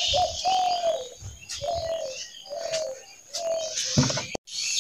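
Birds calling: one bird repeats a short, clear, mid-pitched call several times, some notes dropping at the end, over higher chirping from other small birds. About four seconds in there is a brief knock, and the sound cuts out for a moment.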